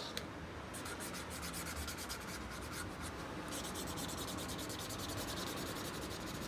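Marker drawing on paper: a steady scratchy rubbing made of many quick, repeated strokes.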